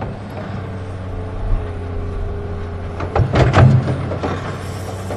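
Huina 1580 RC excavator's electric motors humming steadily as the arm and bucket move, with a burst of scraping and clattering about three seconds in as the bucket digs into stony dirt.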